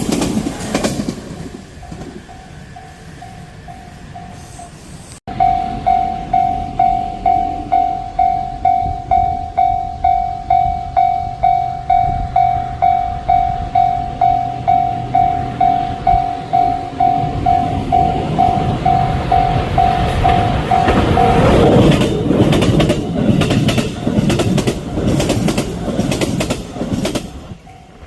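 Japanese level crossing's electronic warning bell ringing at about two strokes a second. An electric commuter train then passes over the crossing, its wheels clattering over the rail joints and drowning out the bell, with the end of an earlier train's passing fading in the first second or so.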